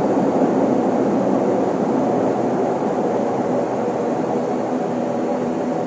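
Steady engine drone heard from inside an airliner's cabin as the plane rolls along the runway: a loud, even rush with a hum of several steady pitches underneath.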